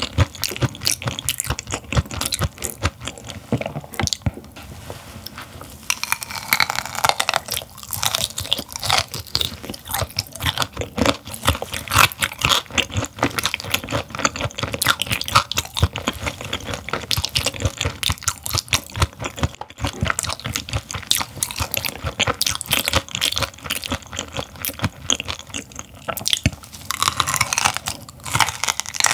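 Close-miked chewing of raw gizzard shad: dense crunching and crackling from the mouth, with wetter smacking a few seconds in and again near the end.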